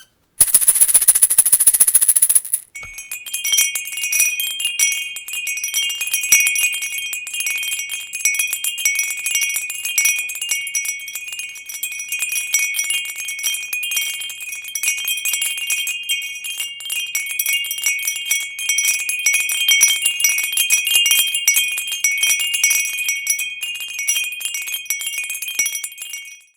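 A balloon deflating, its air buzzing out for about two seconds, then wind chimes tinkling continuously with many overlapping high ringing strikes, fading out at the very end.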